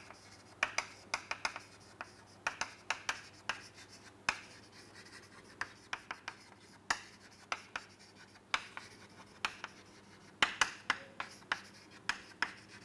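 Chalk writing on a chalkboard: a string of short, irregular taps and scratches as each letter is stroked out.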